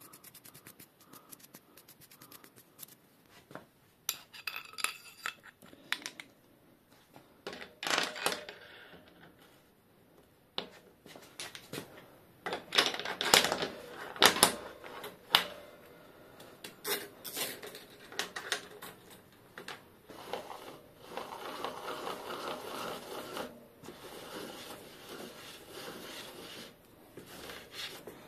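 Metal clinks, clicks and clanks as a brass bottom bracket facing cutter and its steel mandrel are handled and fitted into a bicycle frame's bottom bracket shell, the loudest clanks about halfway through. Near the end comes a longer stretch of rubbing.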